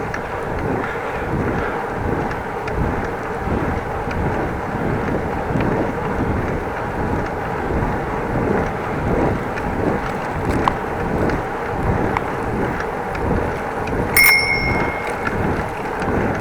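Bicycle being ridden: a steady rumble of tyres on the path with wind buffeting the microphone. About two seconds before the end, a bicycle bell rings once.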